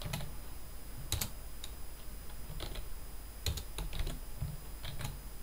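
Computer keyboard being typed on: scattered, irregular keystrokes, a few quicker ones together in the second half.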